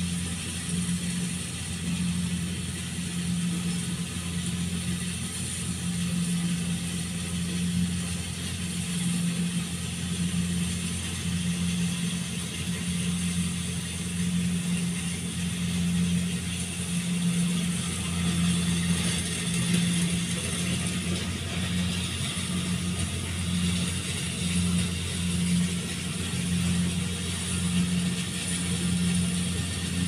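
Kubota rice combine harvester running as it cuts and threshes, a steady mechanical whirring over a low hum that swells and dips unevenly.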